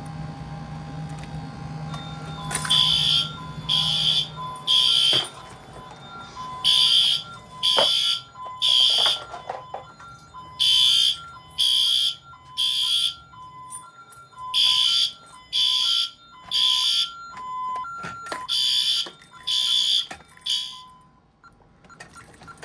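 Fire alarm sounders beeping in the temporal-three evacuation pattern, set off by a smoke detector test: five groups of three high beeps about four seconds apart, with a lower, faster beep pulsing alongside, stopping near the end.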